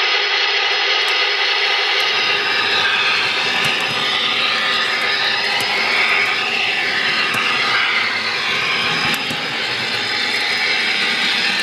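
O-gauge model of the United Aircraft Turbo Train running on a three-rail layout, its onboard sound system playing a steady gas-turbine whine over the rolling of its wheels.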